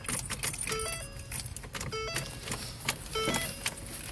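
A car's electronic warning chime repeating about every second and a quarter, with scattered sharp clicks and rattles like keys.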